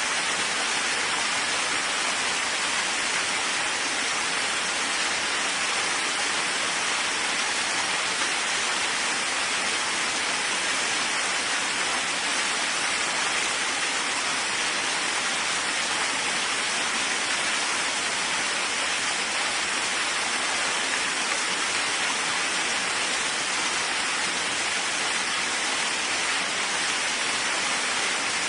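Steady rain falling, an even hiss with no thunder or single distinct drops.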